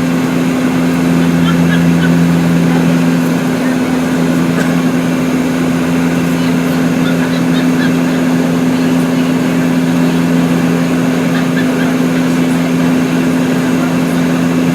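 Steady drone of an airliner cabin in flight: engine hum with two strong low tones over an even rush of air noise.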